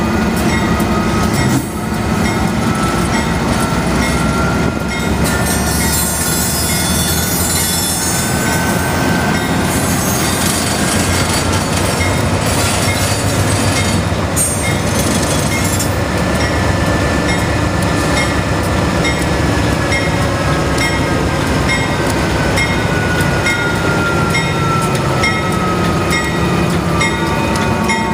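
Union Pacific diesel locomotive running as it strains to move its wheels after locking up on a road crossing, the truck creeping forward. Over the engine's steady rumble a long tone drifts slowly up and then down in pitch, with regular ticks about once a second and bursts of hiss in the middle of the stretch.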